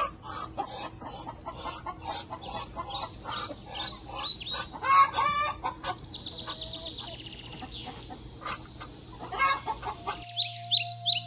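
A flock of chickens clucking and cackling, with high, rapid peeping in the middle. About ten seconds in, the sound cuts abruptly to music with chirping birds.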